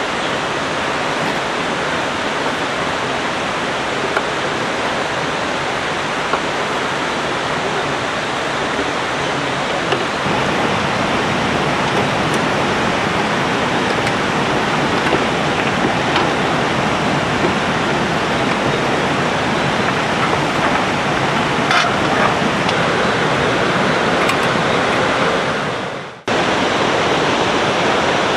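Steady, loud rush of a flowing river. Near the end it dips away briefly and cuts straight back in.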